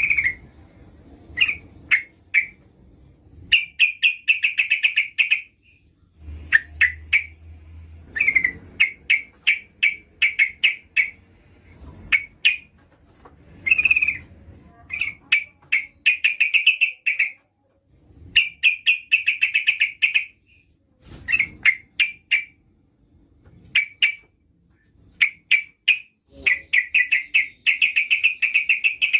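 Yellow-vented bulbul (trucukan) calling: short phrases of rapid, sharp chattering notes repeated again and again with brief pauses between. It is billed as a female's call, used as a lure to draw a male into singing.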